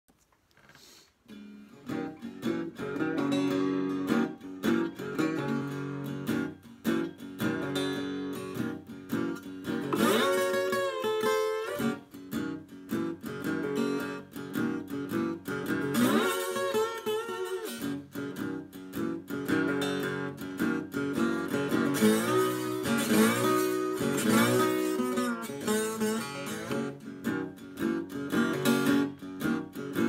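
Old German parlor acoustic guitar played bottleneck-style: slow twelve-bar blues with the slide gliding and wavering between notes over picked bass notes. The playing starts about a second and a half in.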